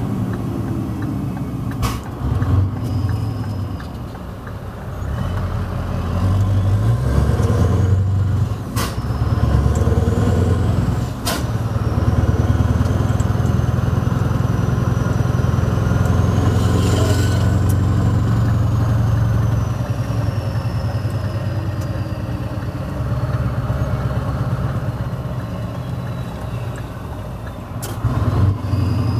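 Scania R500 V8 diesel with loud exhaust pipes, heard from inside the cab while driving slowly. The engine pulls harder for a stretch in the middle and eases off toward the end, with a few sharp clicks and a faint high whistle rising and falling through the middle.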